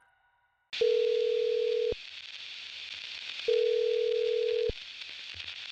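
Telephone ringback tone heard over a hissing phone line: a steady beep rings twice, each about a second long with a pause between, and a third begins at the end. This is the ringing a caller hears while an emergency call waits to be answered.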